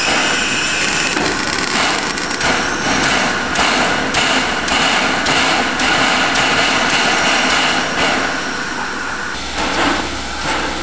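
Pere Marquette 1225, a 2-8-4 Berkshire steam locomotive, passing close: a loud steady rush of steam and running gear with repeated sharp clanks. The sound drops and changes about a second before the end.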